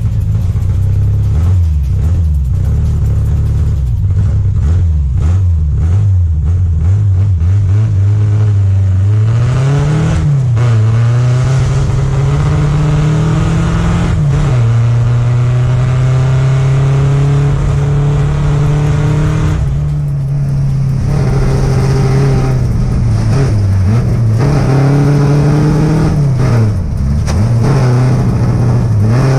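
Triumph Spitfire's four-cylinder engine on an autocross run, heard onboard. For the first several seconds it runs low and rough. From about nine seconds in the revs climb and fall again and again as the car accelerates, shifts and lifts through the course.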